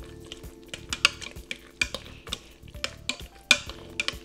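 Wire potato masher working through cooked potatoes in a stainless steel pot, with irregular clinks and knocks of metal against the pot's side.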